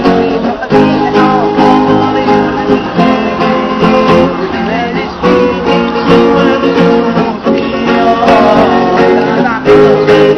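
Instrumental music led by strummed and plucked guitar with steady rhythmic strokes; a higher melodic line with sliding notes comes in near the end.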